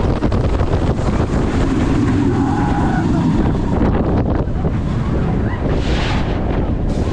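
Wind buffeting the microphone of a camera mounted on a moving roller coaster, over the steady rumble of the train's wheels running along the steel track of a Bolliger & Mabillard dive coaster.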